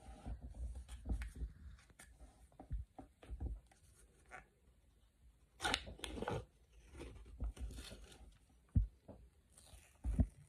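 Crinkling and rustling as the foil lid of a plastic dessert cup is peeled back, with the busiest crinkling about halfway through. Handling clicks run throughout, and a couple of knocks near the end as a spoon goes into the cup.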